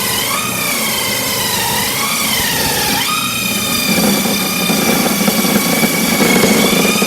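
Homemade table saw ripping a thin strip of wood. The blade's high whine sags and recovers in pitch as it loads up in the cut, then climbs back about three seconds in. From about four seconds a rougher cutting noise joins it.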